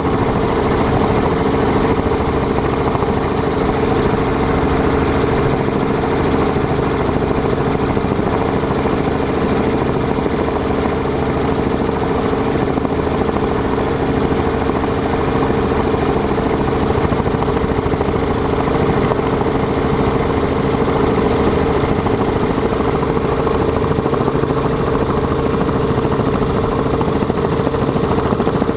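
Helicopter engine and rotor running steadily, heard from aboard as a constant hum.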